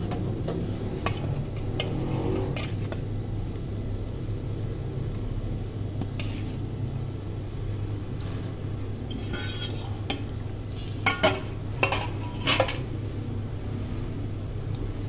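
A slotted metal spatula clinking and scraping against an aluminium cooking pot as fish pieces are settled onto cluster beans, with a few sharp clinks near the end. A steady low hum runs underneath.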